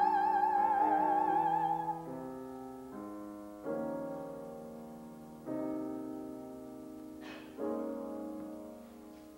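A woman singing in operatic style holds a high note with wide vibrato over piano accompaniment, the note ending about two seconds in. The piano then plays three sustained chords, a couple of seconds apart, each left to fade.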